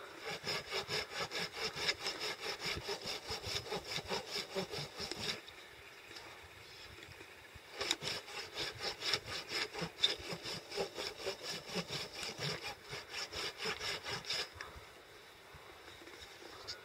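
A hand pruning saw cutting through a dry, weathered dead branch in quick, even strokes, about four a second. The sawing stops about five seconds in, starts again near eight seconds, and stops again near the end.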